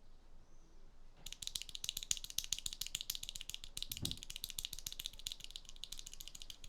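Gateron Milky Yellow linear mechanical keyboard switches pressed rapidly over and over, a fast, dense run of clacks starting about a second in. The sound is muted and lower-pitched. There is a single low thump partway through.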